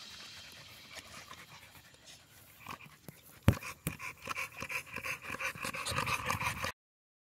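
An American Bully dog panting quickly, about four breaths a second, after a single sharp knock about three and a half seconds in, which is the loudest sound. The panting cuts off abruptly near the end.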